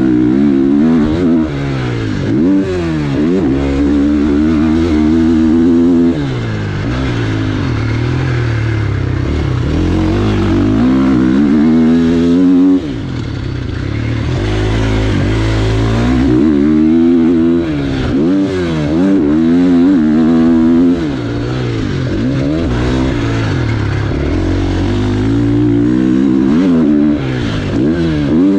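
2023 KTM 450 SX-F single-cylinder four-stroke motocross engine revving hard and backing off again and again, its pitch climbing and falling with throttle and gear changes, heard from the rider's helmet camera.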